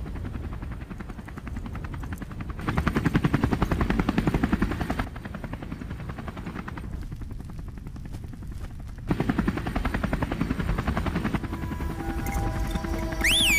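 Helicopter flying low, its rotor blades chopping in a rapid even beat that swells louder twice as it passes. Near the end a high wavering tone comes in.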